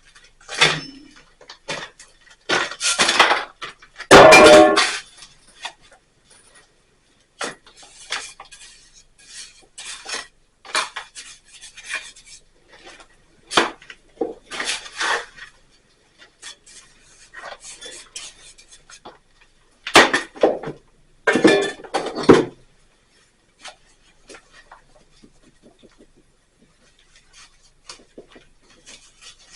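Irregular knocks, clinks and short scrapes of stones and hand tools being handled while a stone wall is built up, with a longer, louder scrape about four seconds in and another cluster of knocks about twenty-one seconds in.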